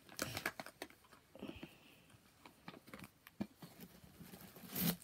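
Scattered light clicks, taps and rustles of hands handling items and packaging in a subscription box, with a louder rustle near the end.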